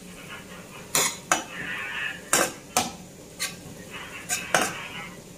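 Metal spatula scraping and knocking against a wok while stir-frying, with several sharp strokes at uneven intervals.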